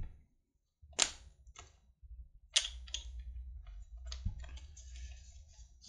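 Sharp plastic clicks and knocks of a shotgun microphone being slid onto a DSLR's hot shoe and its cable plugged in, with two strong clicks about one and two and a half seconds in. The sound cuts out completely for a moment twice near the start, and a low steady hum runs underneath from about two seconds on.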